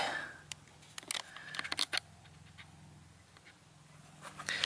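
A few light clicks and taps of a fingertip on a smartphone and the phone being handled: one about half a second in, then a quick cluster over the next second or so, over a faint low hum.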